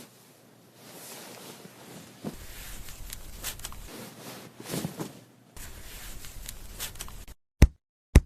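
Soft close-up rustling and rubbing of wet hair being handled in a salon hair wash, with a few faint clicks. Near the end it cuts to silence, broken by two short sharp pops.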